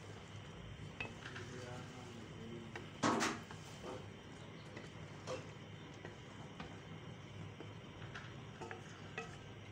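A spatula stirring chana dal and koftas in an aluminium pot: soft scraping with a few light knocks of the spatula against the pot, the loudest about three seconds in.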